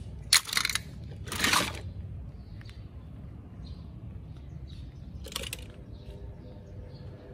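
Outdoor background noise with faint, scattered bird chirps, broken by three short hissing noises about half a second each: two in the first two seconds and one about five seconds in.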